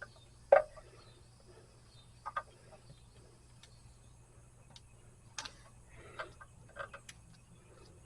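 Small metal clicks and taps of hand work on a vehicle alternator, as screws and parts are handled and tried in the brush assembly: one sharp knock about half a second in, a quick double click a little after two seconds, then scattered lighter ticks. Faint high chirping calls repeat in the background for the first few seconds.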